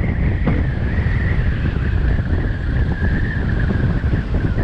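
Wind buffeting the microphone of a moving two-wheeler, with a steady high whine underneath.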